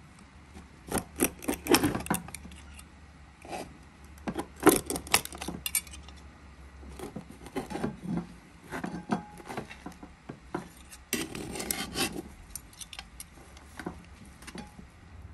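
Flat metal spatula scraping the bottom of a metal pot and cutting through the crisp, browned rice crust of a pilaf: irregular scrapes and crunches in clusters. The loudest come about a second in, near five seconds and around eleven to twelve seconds.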